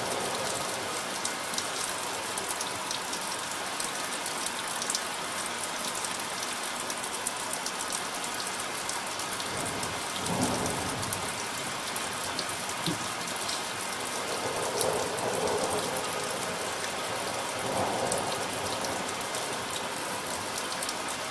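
Steady rain: a constant hiss of drops pattering on a surface, with a few low swelling rumbles about ten, fifteen and eighteen seconds in.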